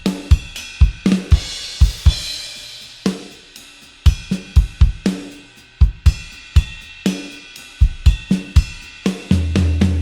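Sampled Ludwig Keystone drum kit from EZdrummer 3's Vintage Rock EZX playing a rock beat of kick, snare and hi-hat, with a cymbal crash washing over the beat about a second in. A low ringing note starts near the end.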